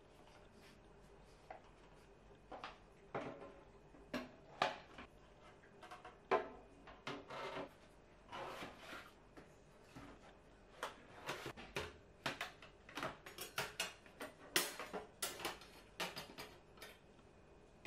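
Kitchen utensils and a plastic knife-tray organizer being set into a kitchen drawer: scattered clacks of plastic and clinks of metal utensils, sparse at first and growing into busier clatter in the second half.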